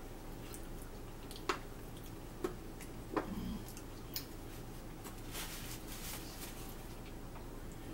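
Sparse light clicks of cutlery against plates and bowls during a meal, four or so, the loudest about three seconds in, followed by a short crinkly rustle of a paper napkin being handled.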